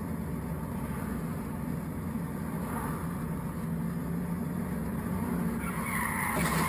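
Steady road and engine noise of a car driving in traffic; about six seconds in, tyres begin to screech in a skid.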